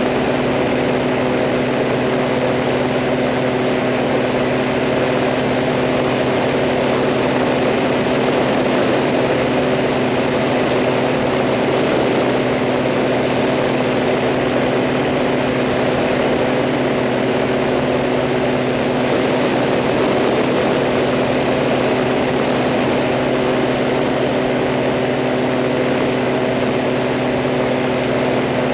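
Propellers of the camera aircraft running at a steady speed, a constant hum made of several even tones over a rushing haze.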